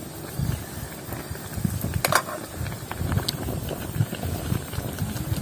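Wind rumbling and buffeting on the microphone, with a few sharp crackles from the wood cooking fire about two and three seconds in.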